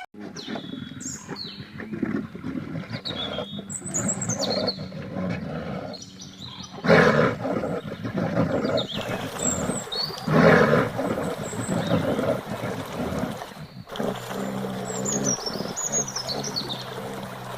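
A large wild animal's loud, rough calls, the two loudest about 7 and 10 seconds in, with high chirps above them.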